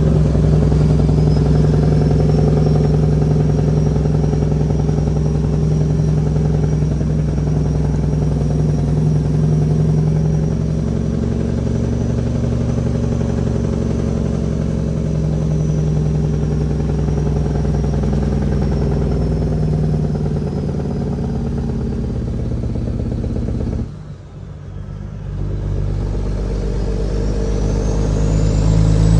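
Cat 6NZ diesel in a Kenworth W900L pulling steadily under a heavy 50-ton load, a deep engine drone with a high turbo whistle over it. About 24 seconds in the engine drops off sharply for a moment, then builds back up, the whistle rising again near the end.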